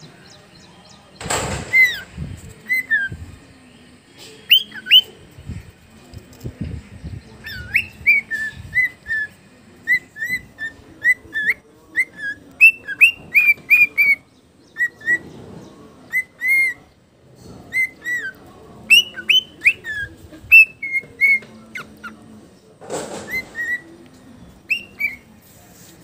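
Cockatiel whistling its song: a long run of short, clear whistled notes around one pitch, many sliding up or down, in phrases with short pauses between them. A brief burst of noise comes about a second in and again near the end.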